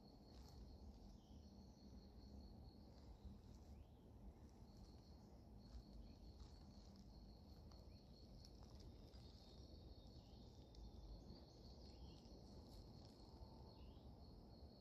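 Faint forest ambience, close to silence: an insect chirps in rapid high-pitched runs that stop and start, over a low background rumble.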